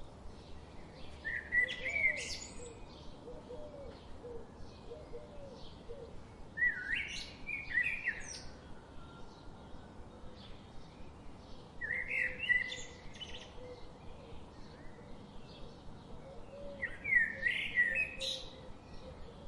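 A songbird singing a short, loud song four times, about five seconds apart, over faint steady chirping.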